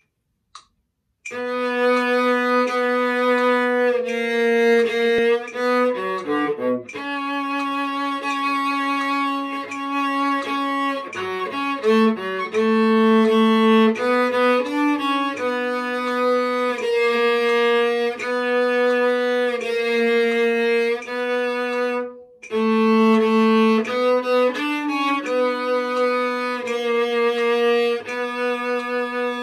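Solo cello played with the bow: a slow melody of long held notes, starting about a second in, with quick runs of notes twice in the first half and a short break about three-quarters of the way through.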